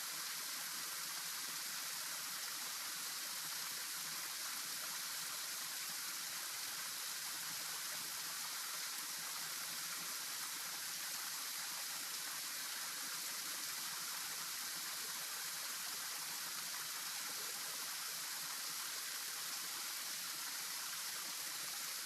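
Steady, unbroken rush of flowing stream water, an even hiss with no distinct events.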